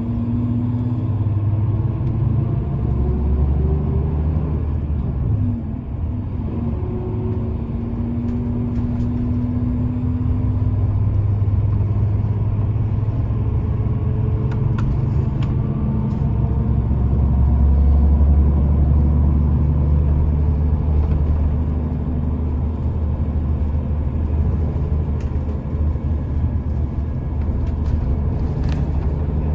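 Road traffic: a steady low rumble with engine notes that rise and fall as vehicles pass.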